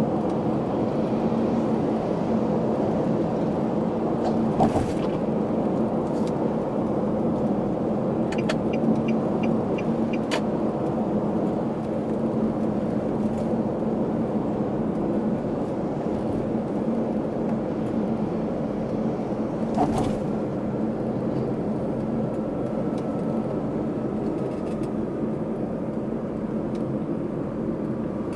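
Steady road and tyre noise with engine hum inside a car's cabin while driving at expressway speed. A few light clicks, and a short run of evenly spaced ticks about eight to ten seconds in.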